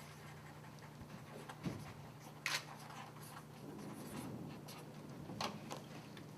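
Quiet room tone: a steady low hum with a few faint clicks and rustles, two of them a little sharper, about two and a half and five and a half seconds in.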